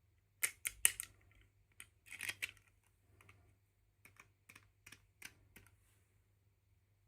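Hands handling small plastic doll pieces and packaging: irregular clicks and short rustles, with the loudest cluster about half a second to a second in and another around two seconds, then scattered lighter clicks.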